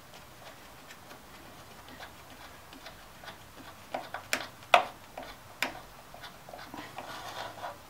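Socket ratchet clicking in short, irregular runs as a 10 mm bolt is loosened on the engine's air filter housing. The clicks grow louder and closer together from about three seconds in, with a few sharp louder clicks around the middle.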